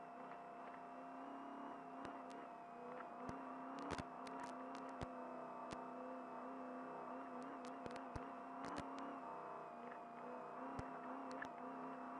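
Trophy truck engine running steadily under way, heard from inside the cab, with scattered sharp clicks and knocks over it.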